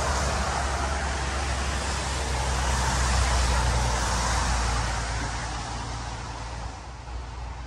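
A road vehicle passing by: a rushing tyre-and-engine noise over a low rumble, swelling to its loudest about three seconds in and fading away toward the end.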